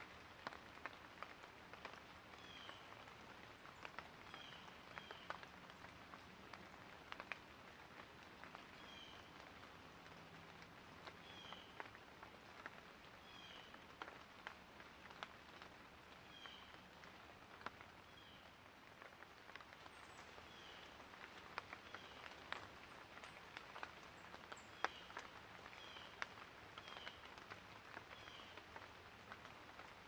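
Faint rain: a steady hiss, with single drops landing as sharp ticks and a short high chirp repeating every second or two.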